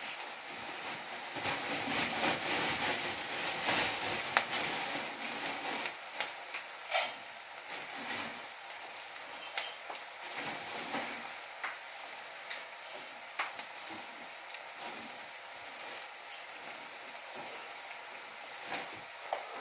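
Chopped onions sizzling in hot oil in a steel kadai, a steady hiss that is loudest in the first few seconds, with a few sharp clicks and pops here and there.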